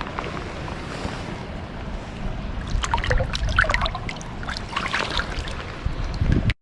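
Close-up water splashing and spattering as a hand-held fish is let back into the river, over a low steady rumble. The splashes come in a burst from about halfway through.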